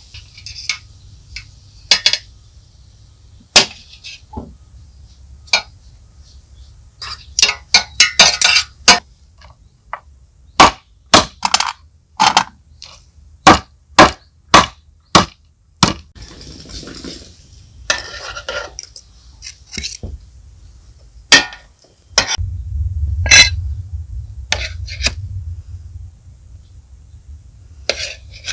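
Kitchen utensils knocking and clinking against bowls and pans: a string of sharp separate strikes, a quick cluster about seven seconds in, then an even run of about two strikes a second in the middle.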